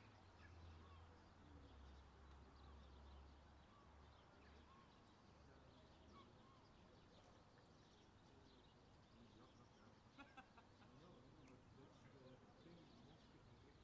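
Near silence: faint outdoor station ambience with distant birds chirping. A low hum fades out about halfway through, and there are two soft ticks about ten seconds in.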